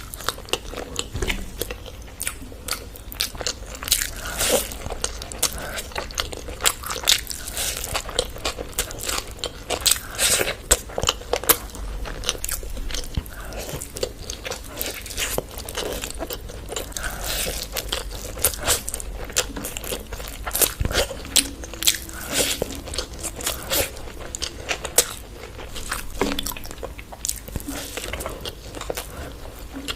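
Close-miked eating: a person biting and chewing a chicken curry and biryani meal, with many sharp, irregular crunchy bites.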